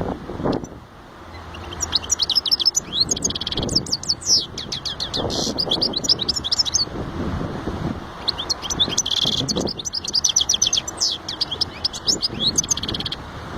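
European goldfinch singing: two long song phrases of rapid twittering trills mixed with buzzy notes, over steady low background noise.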